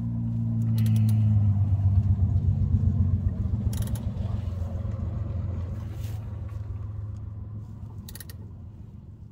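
Low rumble of a motor vehicle's engine, swelling to its loudest about two seconds in and then slowly fading. Over it come a few short runs of clicks from a quarter-inch drive ratchet snugging down the crank position sensor's 8 mm bolt.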